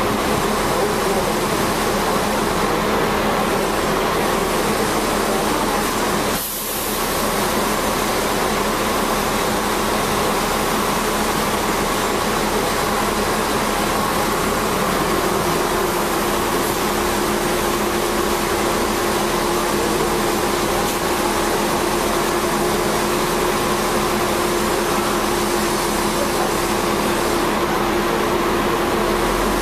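Hong Kong double-decker electric tram running along its line, a steady rumble and hum of motor and wheels on the rails with faint steady tones in it. A further steady tone joins about halfway through.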